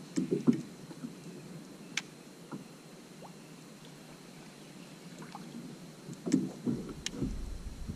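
Scattered knocks and thumps on a Bonafide fishing kayak's plastic hull as a standing angler shifts his feet and handles his rod. There is a sharp click about two seconds in, and the loudest run of thumps comes about six to seven seconds in.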